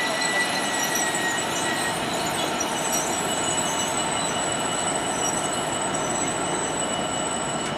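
A train moving along the track past the platform: steady rolling noise with thin, high wheel-squeal tones, one of which fades out about two seconds in.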